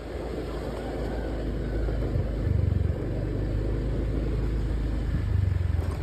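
Motor scooter riding: a low engine and road rumble with wind buffeting the microphone, surging louder about two and a half and five seconds in.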